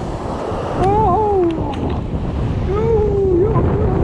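Surf breaking and washing up the sand, with wind buffeting the microphone. Twice, about a second in and again near three seconds, a short wavering voice-like tone rises and dips over it.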